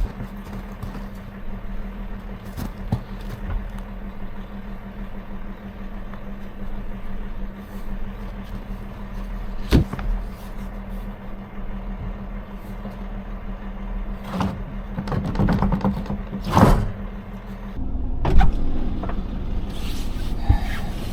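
An engine running steadily at idle, with a few sharp knocks and scrapes over it; the engine note changes near the end.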